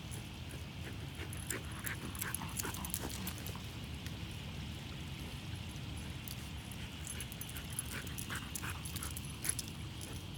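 A dog's short whimpers and yips, scattered and irregular, while it runs about with a plush toy in its mouth. They are busiest about two seconds in and again near the end.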